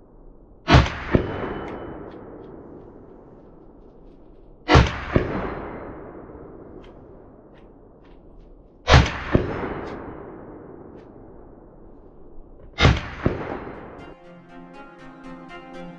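AR-15 rifle fired four times, about four seconds apart. Each shot is followed about half a second later by the bullet striking a steel target, and each fades in a long echo. Music starts near the end.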